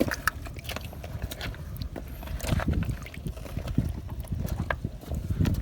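Uneven low rumble of wind buffeting the microphone, with scattered small clicks and knocks.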